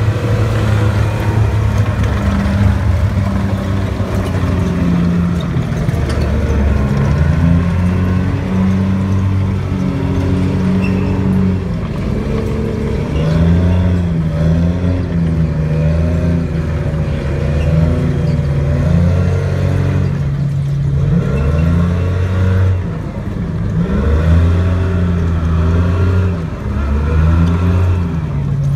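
M113 armoured personnel carrier's engine running under load as it drives and manoeuvres, its pitch rising and falling in steps every few seconds as the driver changes engine speed.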